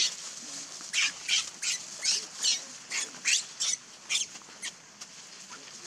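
Baby macaque screaming in distress: about ten short, shrill cries in quick succession, starting about a second in and growing weaker toward the end.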